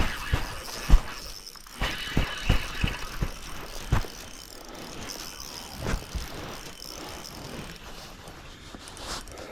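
Irregular knocks and thumps on a bass boat, the loudest about a second in, over a steady low hiss of wind and water.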